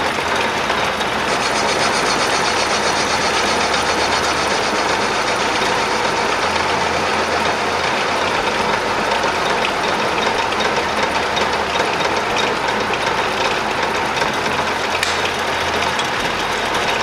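Metal lathe running steadily while a facing cut is taken across the end of a 3/4-inch stainless steel round bar to true it up.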